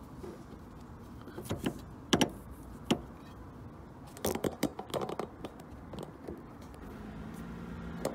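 Sharp clicks and knocks of a Ford Fiesta windshield wiper arm being handled and pushed back onto its spindle, a few single knocks and then a quick cluster of them midway. A low steady hum sets in near the end.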